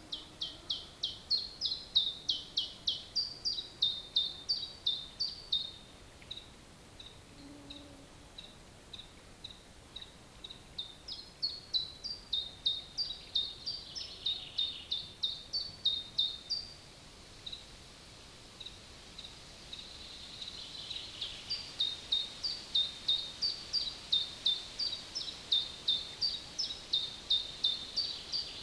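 A songbird singing three long bouts of quick, repeated high notes, about four or five a second, each bout lasting several seconds. Single soft high notes come between the bouts, over quiet forest background.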